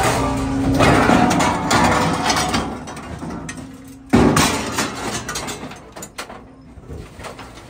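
Copex scrap metal shear plant running with a steady hum, while scrap metal clatters and rattles, loudest for a second or two early on. A sudden loud crash comes about four seconds in, then dies away into quieter clatter.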